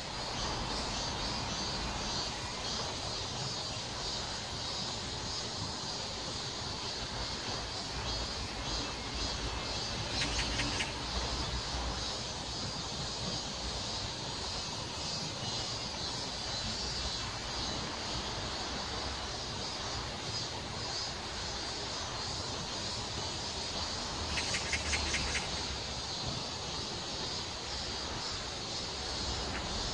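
Outdoor summer ambience of insects buzzing steadily, with two brief, louder bursts of rapid trilling, about ten seconds and twenty-five seconds in.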